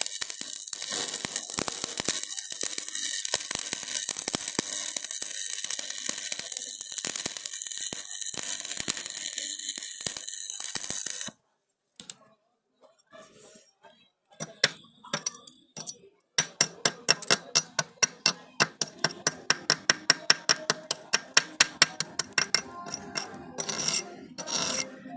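Electric arc welding crackling and hissing steadily for about eleven seconds, then cutting off abruptly as the arc is broken. After a few scattered sounds, a quick regular ticking or tapping begins, several strokes a second.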